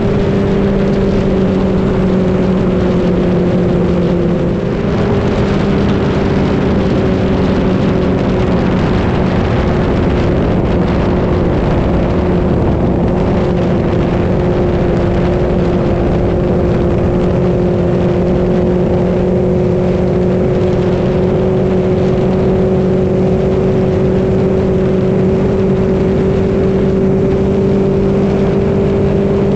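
Mercury Pro XS outboard motor running at planing speed, a steady engine note over the rush of water and wind. The motor eases off slightly about four seconds in, then holds steady.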